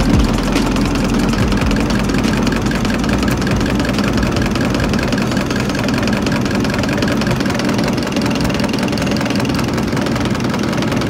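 Diesel injection pump test bench running steadily, a continuous even machine drone with no pauses or changes.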